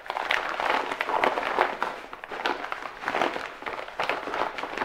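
Brown paper shipping mailer crinkling and rustling as it is handled and opened, a steady crackle of many small sharp crinkles.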